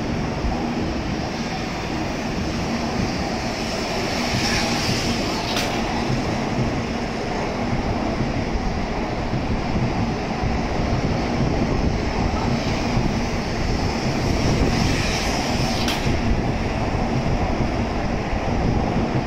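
N700A Shinkansen pulling out of the station, its cars running past close by with a steady rumble of wheels and running gear that grows slightly louder. Brief hissy swells, each ending in a sharp click, come about five seconds in and again around sixteen seconds.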